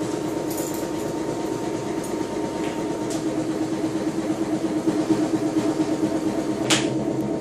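Steady, even hum of a train's machinery heard inside the carriage, with a fixed low tone under it. A single sharp click sounds near the end.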